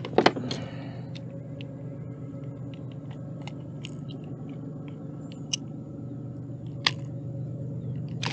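Scattered small clicks and taps from handling a freshly caught traíra and the lure hooked in its mouth, with a few sharper clicks near the start and about seven seconds in, over a steady low hum.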